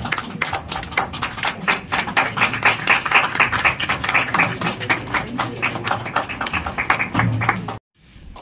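Audience applauding: a dense, irregular patter of hand claps that cuts off suddenly near the end.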